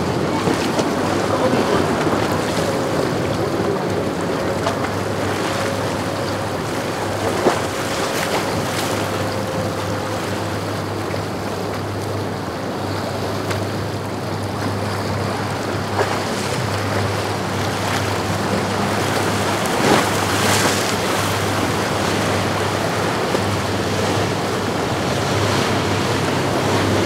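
Surf and powerboat wakes washing, with wind on the microphone and the steady low drone of passing powerboat engines; a few brief knocks stand out.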